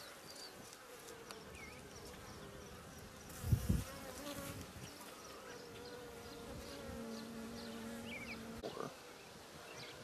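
Honey bees (BeeWeaver stock) buzzing over an opened hive, a faint steady hum that wavers in pitch. A single dull thump comes about three and a half seconds in.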